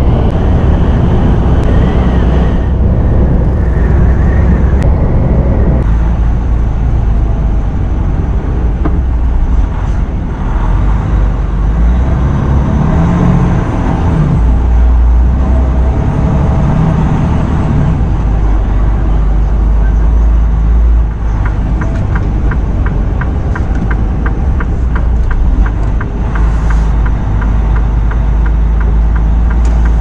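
Semi truck driving, heard from inside the cab: steady engine and road rumble, with the engine note rising and falling around the middle. A fast, regular ticking runs for several seconds in the second half.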